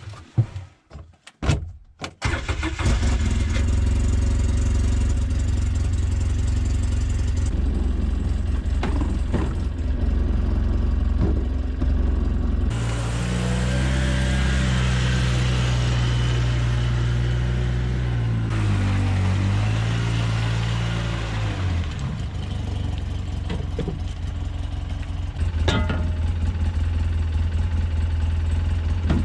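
A utility side-by-side's engine starts about two seconds in and runs steadily. Partway through, its pitch rises and falls as it drives off, then it settles back to an idle.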